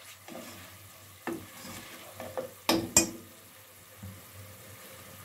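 A spatula stirring and scraping a thick onion-and-spice masala frying in oil in a nonstick pot, with a soft sizzle; the masala is fully fried. About three seconds in come two sharp knocks close together.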